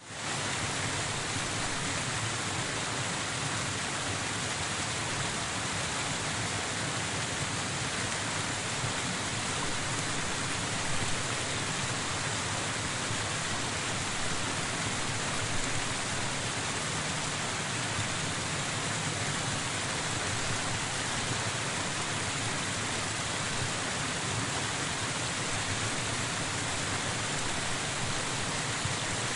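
Waterfall: a steady, unbroken rush of falling water that fades in at the start and then holds even.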